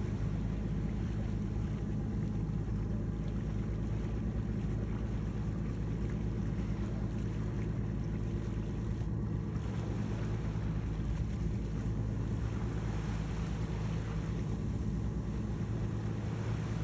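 Boat engine running with a steady low drone, under the rush of water along the hull and wind on the microphone.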